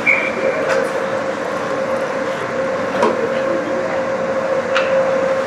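Indoor ice rink sound during a hockey game: a steady machine hum, a short high whistle tone right at the start, and a few sharp clacks of sticks and puck on the ice.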